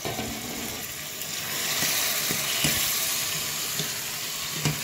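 Food sizzling in a hot stainless steel pot as chopped garden egg is stirred in with a metal spoon; the sizzle swells in the middle. A few light clinks of the spoon on the pot, the sharpest near the end.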